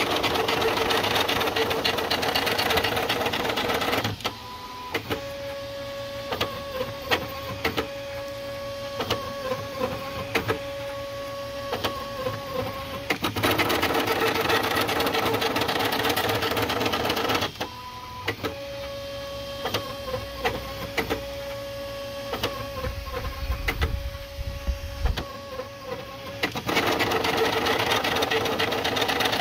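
Leadscrew-driven 3D printer's stepper motors running through a print. Louder, busier stretches of about four seconds alternate with quieter stretches of about nine seconds that carry a steady whine and many quick ticks, so the pattern repeats about every thirteen seconds.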